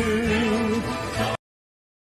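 Music with a held, wavering sung note that cuts off abruptly about one and a half seconds in, leaving dead silence.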